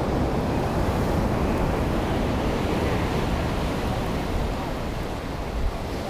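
Ocean surf washing onto a sandy beach in a steady rush, with wind rumbling on the microphone.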